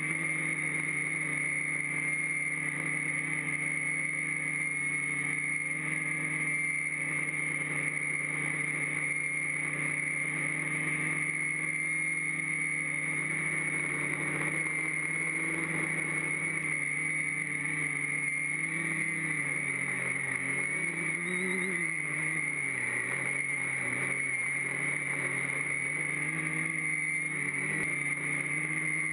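Brushless motors and propellers of a home-built H-frame quadcopter buzzing steadily in flight, picked up by its onboard camera. A high whine sits over the buzz, and the pitch wavers for a few seconds about two-thirds of the way through.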